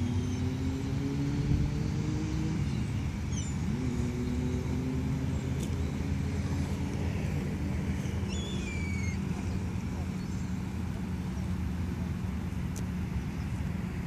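Steady low hum of motor traffic, with engine tones that slowly fall in pitch as vehicles pass in the first few seconds. A few faint gull calls come in about three seconds in and again around eight to nine seconds in.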